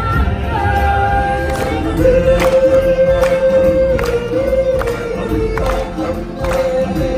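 Stage-show music: singers holding long notes over a steady drum beat that falls about once every 0.8 seconds.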